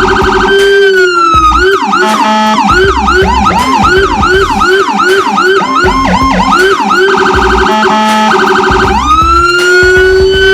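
Whelen HHS3200 electronic siren through a Whelen SA314A speaker, switching through its tones: a held tone with rapid pulsing, then fast rising-and-falling yelp sweeps in two overlapping pitches, rapid pulsed tones again about seven seconds in, and a rising wail near the end. A deep low rumble from the Feniex Hammer low-frequency siren comes and goes underneath.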